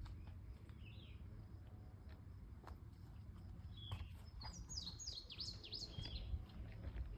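A songbird singing a quick run of high, sliding notes from about four seconds in, after a single short chirp about a second in, over a steady low rumble.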